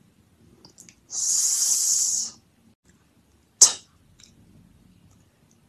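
A voice sounding out phonics letter sounds: a sustained 's' sound ("sss") for about a second, then one short, sharp 't' sound a little over three and a half seconds in.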